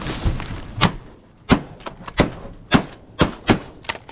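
A volley of shotgun shots from several duck hunters firing at incoming ducks, about seven sharp reports in four seconds at uneven spacing.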